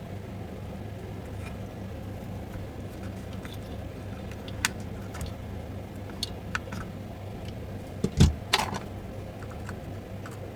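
Scattered light clicks and taps of small parts and tools being handled on a workbench, with a louder knock about eight seconds in, over a steady low hum.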